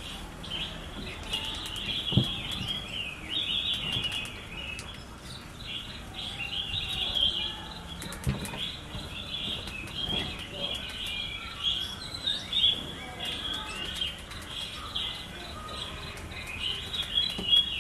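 Many small birds chirping and twittering without pause, with a few soft knocks.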